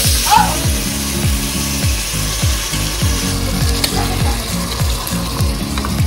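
Sweet and sour sauce poured into a hot pot of sautéed vegetables, sizzling, loudest as the sauce first hits, with a wooden spatula scraping now and then. Background music with a steady beat of about two strokes a second plays underneath.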